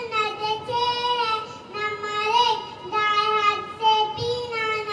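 A young girl's high voice reciting in a sing-song chant, holding long, fairly level notes with short breaks between phrases.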